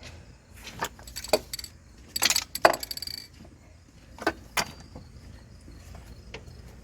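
A handful of sharp metallic clanks and rattles, the loudest a short jangling cluster about two and a half seconds in, as metal tools or parts are handled.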